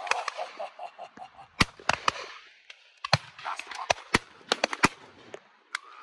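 Shotguns firing along a line of guns at driven game birds: a dozen or so shots at uneven intervals, some close and loud, others fainter and farther off, several in quick pairs. In the first second a bird calls with a quick run of cackling notes.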